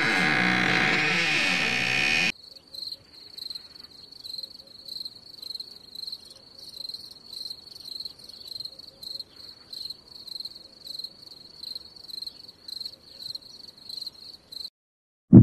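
Music cuts off about two seconds in, then crickets chirp in steady high pulses about twice a second. A deep thud comes in at the very end.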